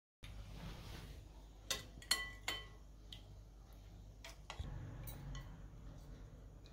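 Kitchen utensils clinking against glass and china dishes: three sharp clinks with a short ring about two seconds in, then a few lighter taps, over a low steady hum.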